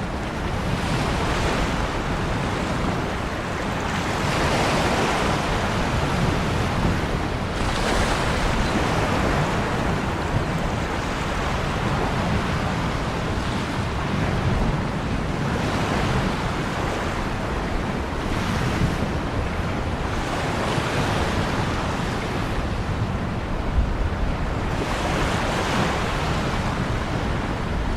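Ocean waves breaking and washing on a shore, a continuous surf noise that swells and recedes every few seconds.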